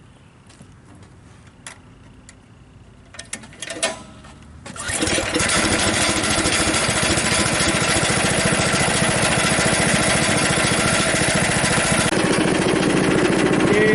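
Frontier OS23 sawmill's small gasoline engine pull-started: a few clicks and knocks, then it catches about five seconds in and runs steadily. The start shows the newly replaced on/off switch working in the on position.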